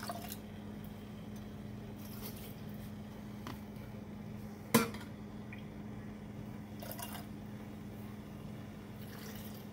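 Glass canning jars and kitchen utensils: a single sharp clink about five seconds in, with a few faint knocks around it, over a steady low hum.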